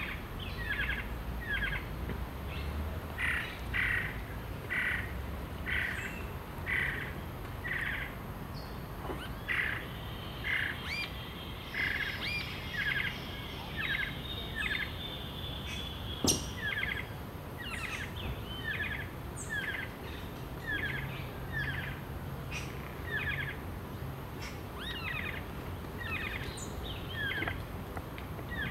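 Rufous-tailed jacamar calling: a long series of short, sharp, high notes, repeated about once or twice a second. One sharp click about halfway through.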